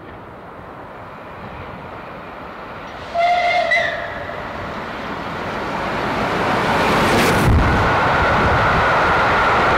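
Steam locomotive approaching, its exhaust and running noise growing louder. About three seconds in it gives a short whistle that sags in pitch at the end. Near the end it passes close in a louder rush, with a steady high note held over the last two seconds.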